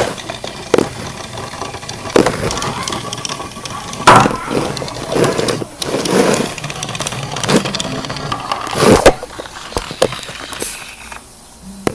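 Irregular rustling and knocking from close handling, with sharp bumps, the loudest about four and nine seconds in.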